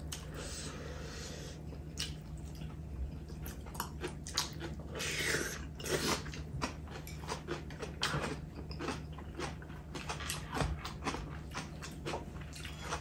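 Close-up eating sounds: chewing and slurping of soft nurungji (scorched-rice porridge) and salted seafood, with irregular light clicks of chopsticks and spoons against ceramic bowls and a stone pot.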